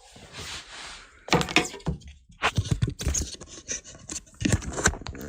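Handling noise close to the microphone: a soft rustle, then a run of irregular knocks, thumps and scrapes as the phone is picked up and carried.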